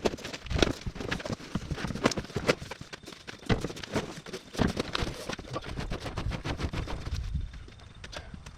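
Irregular knocks and clunks from a heavy steel PTO-driven concrete mixer being shifted out of the back of a car, thinning out and going quiet after about six seconds.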